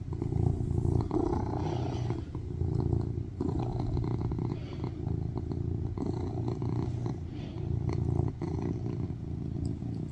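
Tuxedo cat purring loudly while being stroked on a lap, a continuous low purr that swells and eases every second or two.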